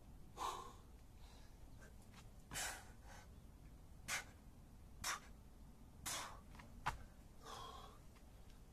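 A man breathing hard through a set of burpees, with about six short, forceful exhales spaced roughly a second apart. There is a brief sharp click about seven seconds in.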